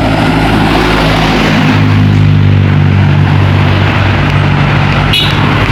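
Large diesel tour bus engine running close by, a loud steady low drone, with a short sharp sound about five seconds in.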